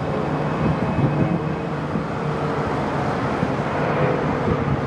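Jet airliner engines at takeoff power: a steady rushing noise with a faint high whine.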